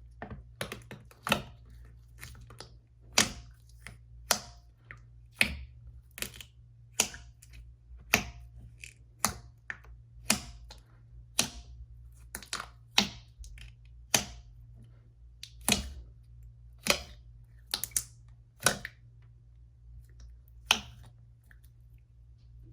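Slime being squeezed and pressed by hand, its trapped air bubbles popping in sharp clicks about once a second, with fainter crackles between, over a low steady hum.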